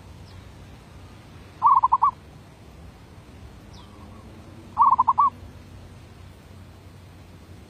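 Zebra dove (merbuk) cooing twice, about three seconds apart; each call is a quick run of four or five staccato coos. This is the song that merbuk keepers grade as 'suara B, derak labuh'.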